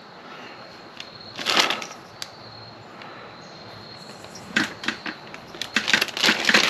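Small plastic parts and packaging being handled: a brief rustle, then a run of quick clicks and rattles.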